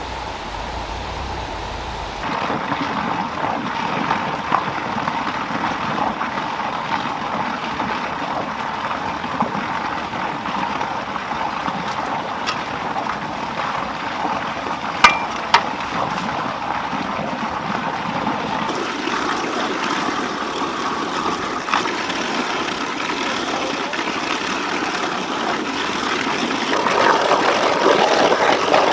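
Water running steadily through a concrete channel and into a trough, a constant rushing that grows louder near the end. Two sharp knocks about halfway through.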